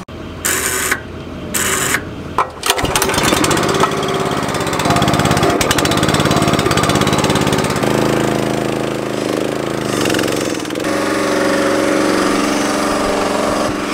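Honda small gasoline engine on a seed tender starting with a few short choppy bursts, then running steadily from about three seconds in. Its note changes about eight seconds in.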